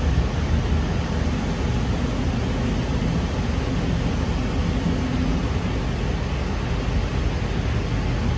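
Interior running noise of a K set double-deck electric train in motion: a steady low rumble of wheels on rail with an even hiss.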